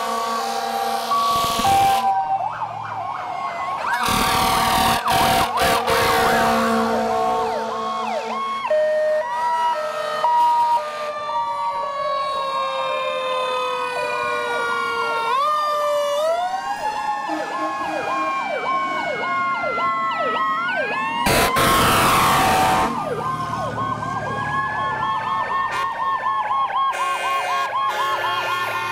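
Several fire-apparatus sirens sounding over one another as a line of fire trucks passes: electronic wails and yelps sweeping up and down, with a fast warble. Loud air horn blasts come near the start, around five seconds in and again around twenty-two seconds in.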